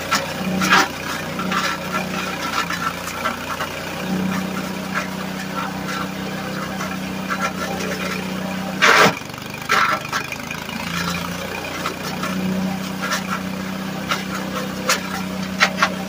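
Small single-cylinder engine of a LandWorks drum wood chipper running steadily on wood gas from a gasifier, with a few sharp knocks over it, the loudest about nine seconds in.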